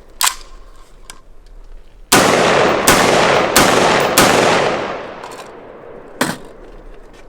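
Prema Arms AR-15 firing a rapid string of shots from a military magazine. The string starts abruptly about two seconds in, and its ringing dies away about three seconds later. Single sharp cracks come just after the start and about six seconds in, and the rifle keeps cycling without a stoppage.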